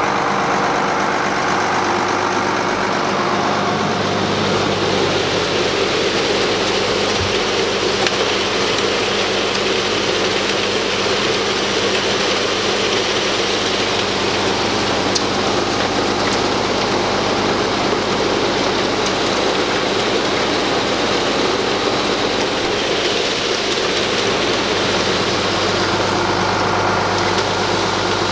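Case IH 7140 tractor's six-cylinder Cummins diesel engine running steadily at a constant low pitch.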